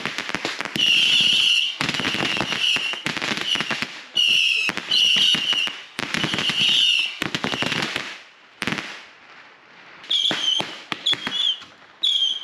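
Consumer fireworks going off in rapid succession: dense crackling and popping bursts, each with a high-pitched whine, easing off about eight seconds in, then starting again with shorter bursts near the end.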